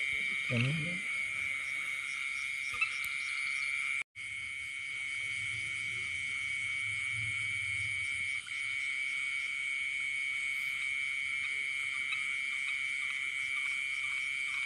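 Steady night chorus of insects and frogs: an unbroken high-pitched trilling made of several held tones. The sound cuts out for an instant about four seconds in, then carries on unchanged.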